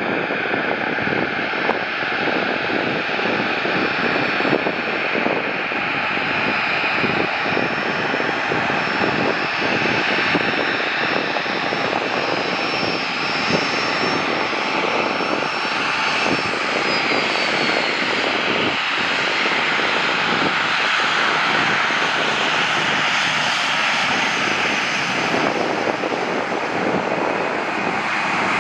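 Jet airliner engines, a steady rush with faint whining tones, growing slightly louder as the plane comes in to land.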